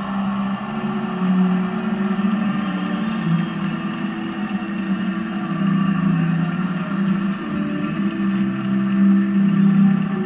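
Stadium crowd cheering and clapping over held musical notes that change every second or two, heard through a television speaker.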